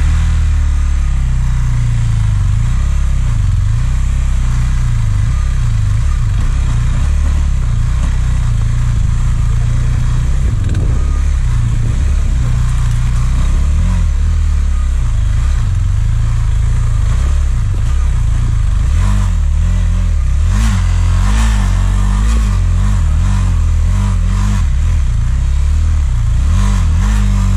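A vehicle engine running under load, its revs rising and falling, over a heavy low rumble.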